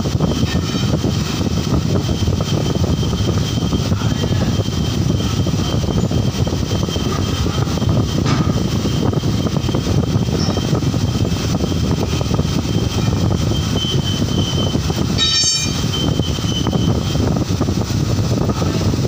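Loud, steady whir of running machinery or fans, with a faint high whine through it. A brief pitched chirp comes about three-quarters of the way through.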